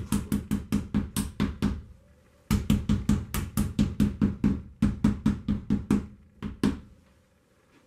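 Rubber mallet tapping rapidly and lightly on a 3D-printed plastic keyguard against a tabletop, about five taps a second, to drive the overlapped dovetail joint of its two printed halves together. The tapping pauses briefly about two seconds in, resumes, and ends with a couple of spaced last taps near the end.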